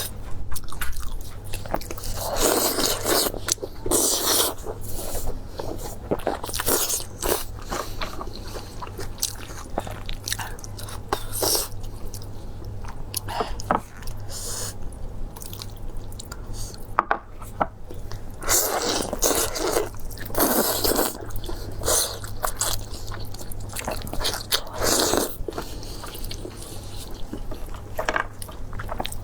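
Close-miked eating: biting, crunching and chewing with many sharp mouth clicks, and a few longer crunchy stretches.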